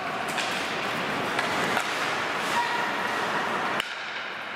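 Ice hockey rink noise during play: skates scraping on the ice, with a few sharp clicks of sticks and puck in the first couple of seconds. The sound drops off suddenly near the end.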